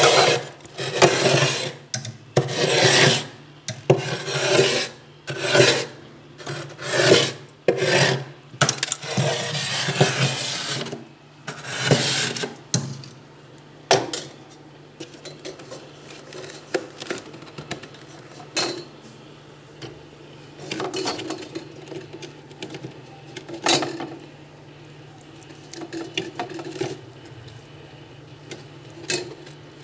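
Spoon scraping built-up frost off the inside walls of a freezer: a run of rasping strokes about one a second for the first dozen seconds, then sparser, quieter scrapes.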